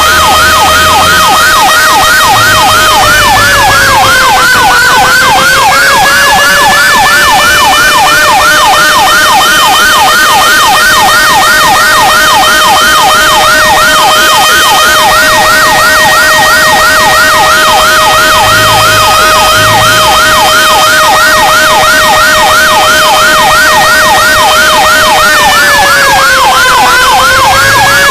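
Fire truck sirens sounding loudly and without a break: a fast repeating yelp, about three sweeps a second, over a steady held tone that briefly sags in pitch twice, a few seconds in and near the end.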